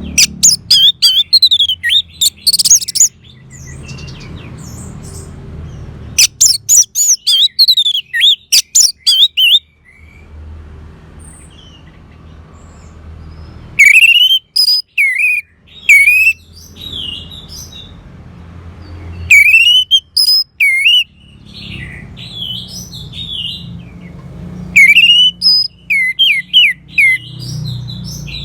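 Orange-headed thrush singing in five separate loud phrases a few seconds apart, each a quick run of high chattering notes and rising-and-falling whistles. A low steady hum fills the pauses between phrases.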